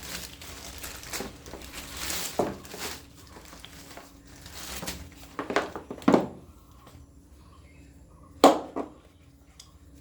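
Packaging rustling and being handled, with scattered knocks and clicks and one sharp click about eight and a half seconds in.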